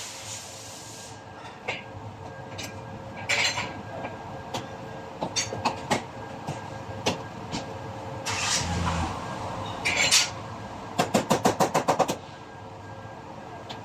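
A body hammer striking sheet metal over a dolly: scattered single taps, then near the end a quick run of about ten taps at roughly eight a second. A couple of brief scraping sounds come in between.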